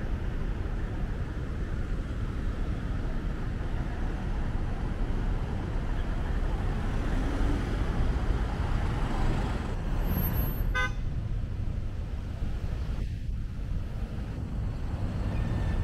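Steady city street traffic noise, with a short car horn toot about eleven seconds in.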